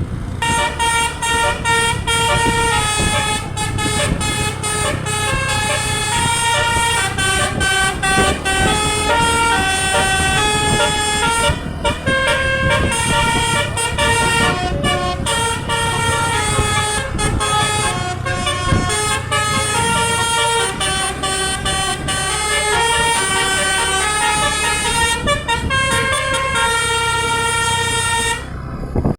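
Tour bus's telolet 'basuri' musical air horn (DAV Musical Airhorn module) playing a melody, note after note, over the steady rumble of the bus engine. The sound drops out abruptly at the very end.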